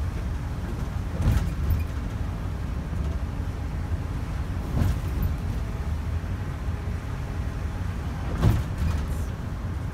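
Greyhound coach running under way, heard from inside: a steady low rumble of engine and road, with three short knocks or rattles about a second in, near the middle and near the end.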